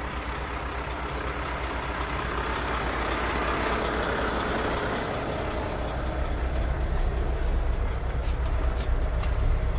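Mack tractor-trailer's diesel engine idling with a steady low throb, growing louder toward the end, with a few light clicks near the end.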